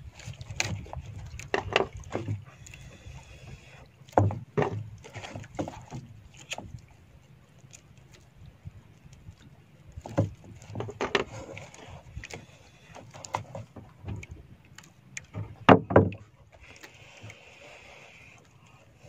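Irregular knocks and thumps on a wooden outrigger boat as a smouldering coconut husk is handled to start a grilling fire. Near the end comes a breathy hiss of blowing into the husk to fan its embers.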